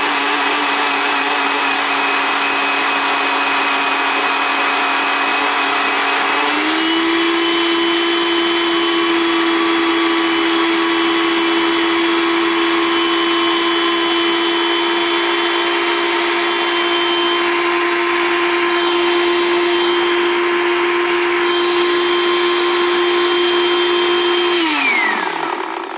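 Countertop blender running with whipping cream in its jar, churning it toward butter: a loud, steady motor whine. About six seconds in, its pitch steps up and holds. Near the end it is switched off and winds down with a falling pitch.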